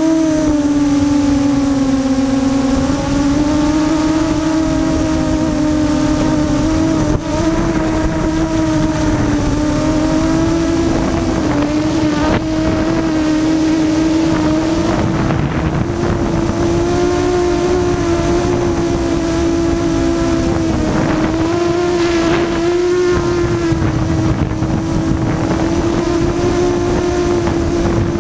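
Emax MT1806 brushless motors and propellers of a ZMR250 racing quadcopter on a 3S battery, heard from a camera on the frame: a loud, steady whine whose pitch wavers up and down a little, over wind noise.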